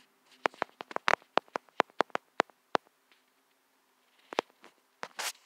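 Quick, sharp taps typing on a smartphone's touchscreen keyboard: about a dozen taps in just over two seconds, then a pause and a couple more taps near the end.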